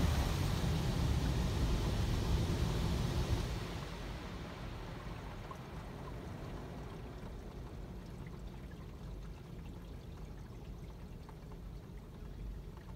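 Car-wash water spraying and running down the windshield, heard from inside the car. The water noise fades out about three and a half seconds in, leaving a faint, steady low rumble.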